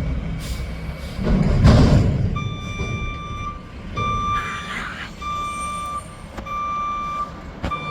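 Mack McNeilus front-loader garbage truck's diesel engine rumbling, surging loudly about a second in, then its backup alarm starting up: steady single-pitch reversing beeps about once a second as the truck reverses.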